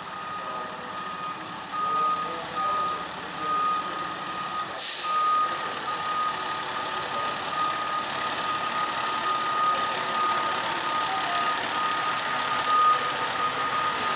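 Fire engine backing up, its reversing alarm beeping steadily over the running engine. A short burst of hiss comes about five seconds in.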